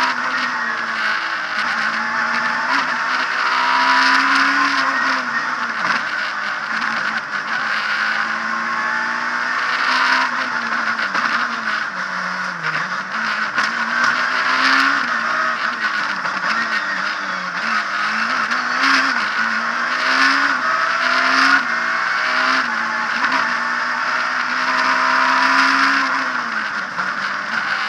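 Abarth Punto S2000 rally car's 2.0-litre four-cylinder engine heard from inside the cockpit at full racing pace. The revs rise and drop again and again through gear changes and braking. Short sharp knocks and clatter cut in at intervals.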